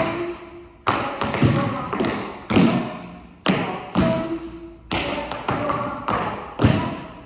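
Tap shoes striking a wooden dance floor in irregular taps and stamps, about one or two a second, each ringing on in the room's echo.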